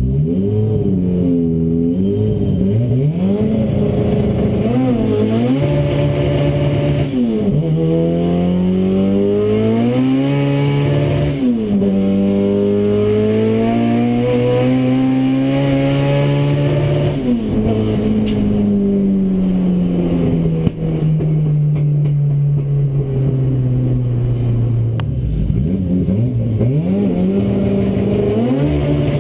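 A Saab NG900 drag car's engine, heard from inside the cabin, blipping and revving at the start line, then launching and pulling hard up through the gears. The pitch drops sharply at two gear shifts, climbs in the last gear, and then falls slowly as the car coasts down after the run. Near the end the revs rise and fall again in short blips.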